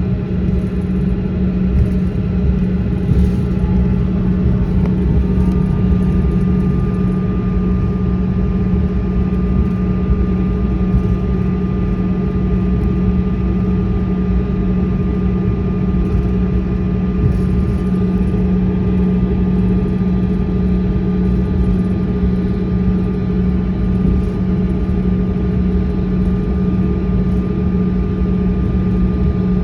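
Jet airliner cabin noise on the ground after landing: a steady, loud low drone of the idling engines and air system. A thin high whine steps to a new pitch about five seconds in.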